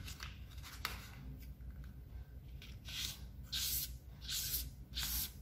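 Pink felt-tip marker scratching across the paper of an origami crane's wing in short back-and-forth colouring strokes, a little more than one a second from about halfway through, after a few faint ticks at the start.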